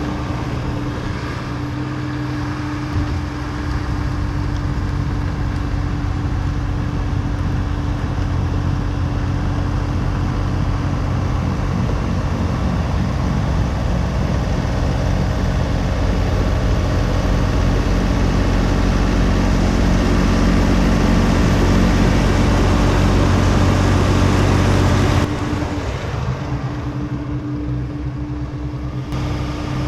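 John Deere 3046R compact tractor's diesel engine running steadily with its snowblower working: a constant engine hum under a broad rushing noise. About four seconds before the end the sound drops suddenly and turns duller.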